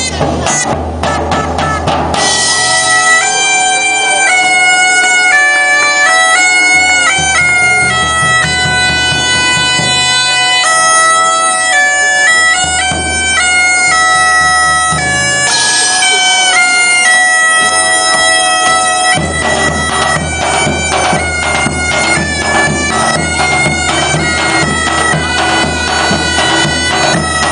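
Medieval bagpipes playing a tune over a steady drone, with drums beating in some passages and dropping out in others.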